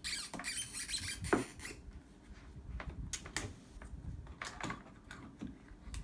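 Handling sounds from a small LED flood light on its mounting bracket: a series of irregular clicks and knocks with light scraping, the loudest knock about a second in.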